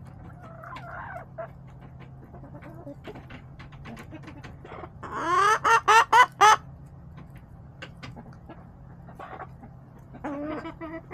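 Backyard hens clucking, with a loud, rapid run of about six sharp calls about five seconds in and softer clucks near the start and near the end.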